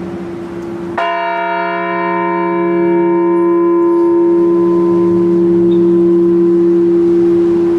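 A large memorial bell is struck once about a second in and left to ring. Its higher tones die away over a few seconds while a deep hum carries on. It is a single toll for the veteran whose name has just been read.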